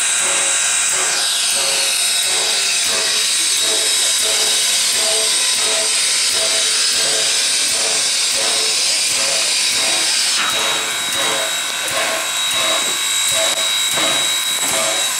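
Baldwin 0-6-0 steam locomotive No. 58 standing and venting steam: a loud, steady hiss, with a rhythmic pulsing about three times a second beneath it. The hiss eases a little about ten seconds in.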